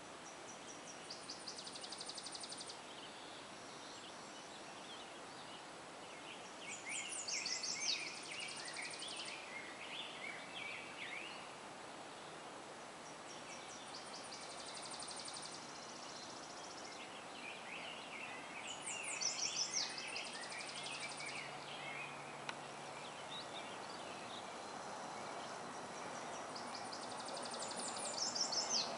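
Songbirds singing in bursts of a few seconds, about every six seconds: fast high trills and quicker lower chirps, over a steady background rumble of distant traffic that swells near the end.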